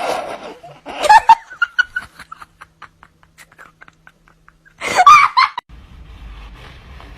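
A person laughing in a few short, loud outbursts: one about a second in and another about five seconds in, with quieter clicks between them.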